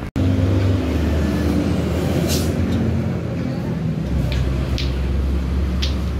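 Steady low rumble of a running motor vehicle engine, with a few short metallic clicks.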